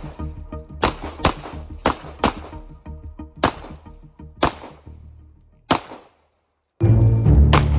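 Pistol shots during an IPSC handgun stage: seven sharp cracks, the first four in two quick pairs, then three single shots about a second apart, over background music. The music drops out briefly just after the last shot and comes back louder near the end.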